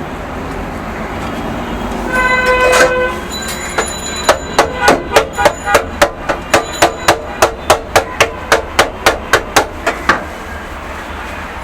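A run of about twenty sharp metallic strikes, about three a second, each ringing with a clear pitch, typical of a cook's metal spatula clanging on a flat iron griddle. About two seconds in there is a short pitched blare, and a steady rumble of street traffic runs underneath.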